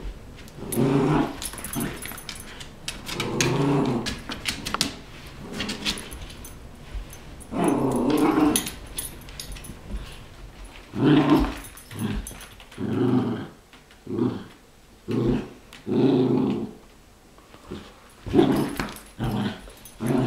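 Dogs growling during a tug-of-war game over a rope-like toy: a string of play growls, longer bouts at first, then shorter ones coming faster in the second half.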